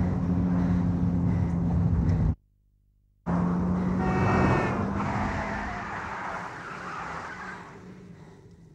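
Loud road-traffic noise with a steady low engine-like hum, cut off abruptly by a silence of about a second a little over two seconds in. It returns with a brief high squeal about four seconds in, then fades away.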